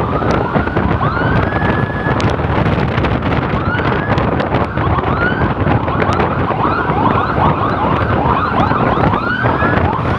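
Electronic emergency siren sweeping up and down in quick repeated wails, getting faster in the second half, over a heavy rush of wind and road noise on a moving microphone.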